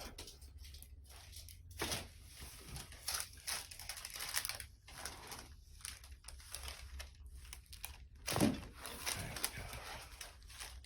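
Faint rustling and crinkling with scattered soft clicks: a person shifting on a chiropractic treatment table and the Y-strap being handled. A slightly louder rustle comes about eight seconds in.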